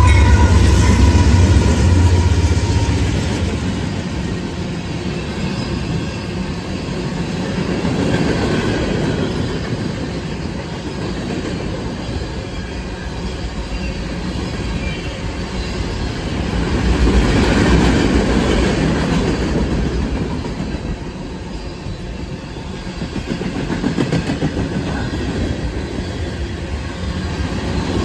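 A Norfolk Southern freight train passing close by. The lead diesel locomotives' engines drone with a pitched whine that falls away in the first few seconds. Then a long string of freight cars rolls past, wheels clattering on the rails, the rumble swelling and easing as the cars go by.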